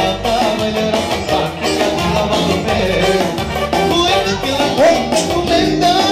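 Loud dance music with a steady beat and a melody line.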